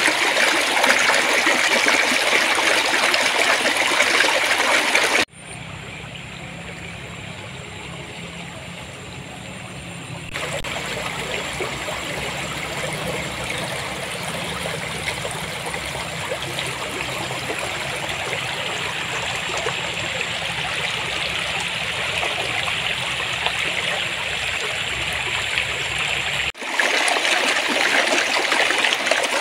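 Stream water flowing and babbling over stones in a steady rushing trickle. The sound cuts abruptly to a quieter, duller stretch of flowing water about five seconds in, grows somewhat louder a few seconds later, and cuts back to the louder, brighter flow near the end.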